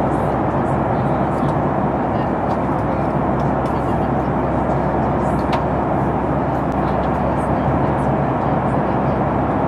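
Steady jet airliner cabin noise in cruise, a constant even rush inside a Boeing 737 MAX 8 cabin, with a few faint ticks.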